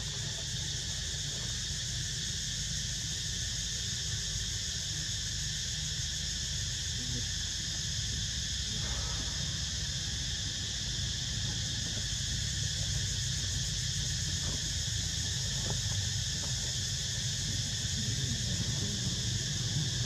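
Steady insect chorus humming in several high bands, over a steady low rumble.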